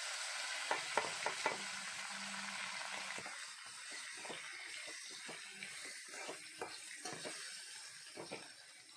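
Diced raw potatoes frying in hot oil in a steel pan: a steady sizzle that slowly fades, with a utensil clicking and scraping against the pan as they are stirred.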